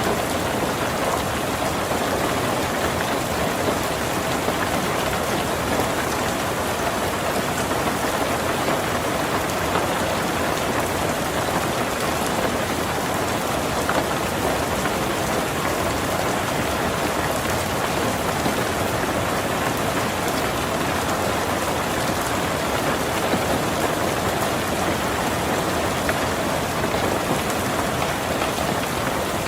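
Heavy rain pattering steadily on a tin roof, a dense even hiss of drops with no let-up.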